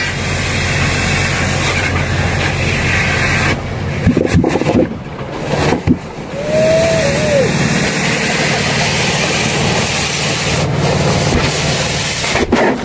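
An engine running steadily with a low hum, broken by a few knocks in the middle and a short rising-then-falling tone.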